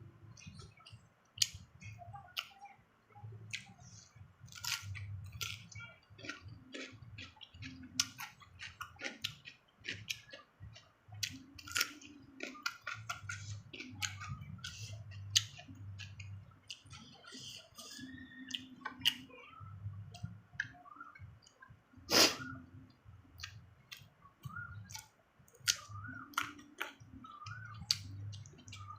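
Crunchy chewing of raw young cucumber and green mango: many sharp, crisp crunches and wet mouth clicks in an irregular rhythm, with one louder crunch about two-thirds of the way through.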